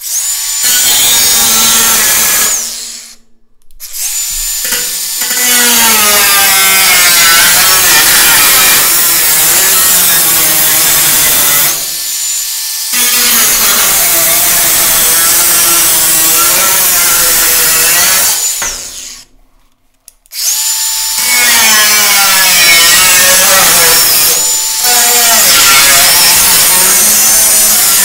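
Cordless DeWalt 20V angle grinder with a 4½-inch cut-off wheel cutting through sheet steel: a loud hiss with a whine whose pitch wavers as the wheel bites into the metal. It spins up right away, cuts out briefly about three seconds in and for about two seconds later on, spinning back up each time.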